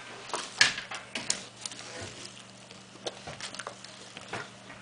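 Scattered light knocks and clicks, about eight in all and most of them in the first second and a half, over a faint steady low hum.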